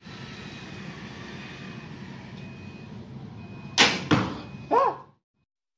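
A barebow recurve with Nika limbs shooting a carbon arrow. After steady background hiss, the bowstring is released with a sharp snap nearly four seconds in, and a second sharp knock follows a moment later. A brief sound with a rising-and-falling pitch comes just before the sound cuts off.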